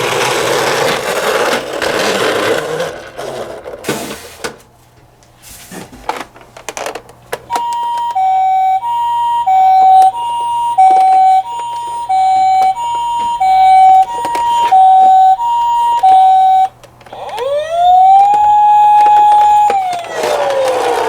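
Toy ambulance's electronic siren sounding the Japanese high-low two-tone ambulance pattern, about one high-low cycle a second. It then switches to a wail that rises, holds and falls away. Before the siren starts there are a few seconds of noisy rumble and some clicks.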